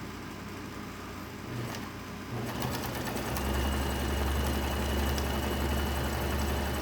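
Viking sewing machine starting up about two seconds in and then stitching steadily, a low motor hum with a faint high whine, running normally after having been stuck.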